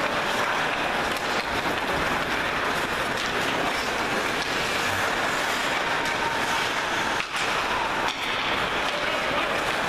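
Steady, noisy ice-rink ambience during a hockey game in play, an even hiss with no voices standing out and a couple of brief drops in level.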